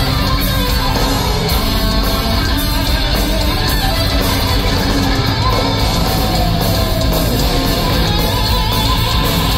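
Heavy metal band playing loud and steady through a concert PA, heard from the crowd, with electric guitar to the fore over bass and drums.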